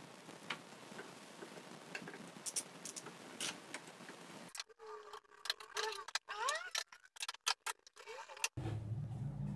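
Clamps being fitted and tightened on a wooden workpiece: scattered taps, then a quicker run of clicks from a one-handed bar clamp's trigger being squeezed, with a few short squeaks. A steady low hum comes in near the end.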